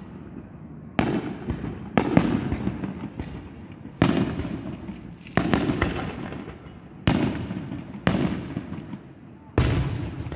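Aerial firework shells bursting, about seven sharp booms spaced a second or so apart, each trailing off in a rolling echo.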